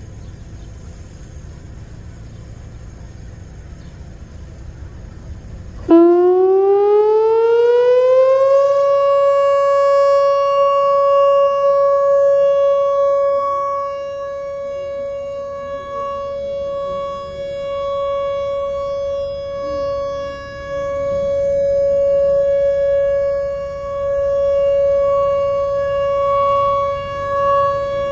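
Whelen WPS-4004 electronic tornado siren starting its test: about six seconds in it winds up with a rising glide, then holds a loud steady tone. Later its level swells and dips.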